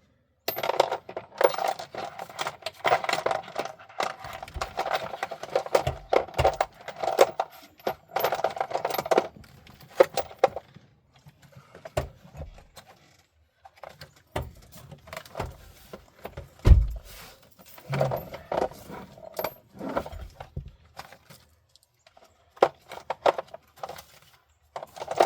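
Metal tools and small parts clinking and rattling in quick clusters as they are handled, with a few dull knocks, the heaviest about two-thirds of the way through.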